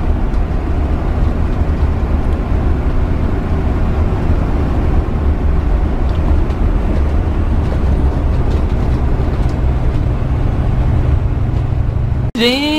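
Steady low rumble of engine and road noise inside a motorhome's cab as it drives along a paved road. It cuts off abruptly just before the end, and a voice begins.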